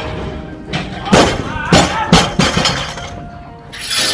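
Barbell loaded with bumper plates dropped onto a lifting platform after a snatch: a heavy impact about a second in, followed by several quick bounces and clanks of plates and bar over the next second and a half.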